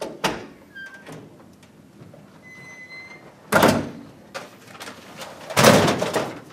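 A door opening, with a short knock and a few brief thin squeaks, then two loud bursts of handling noise as a person moves about at a wooden bookshelf full of magazines.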